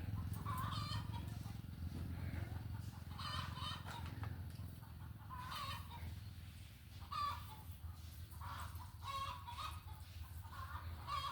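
Chickens clucking in short calls about once a second, over a steady low hum.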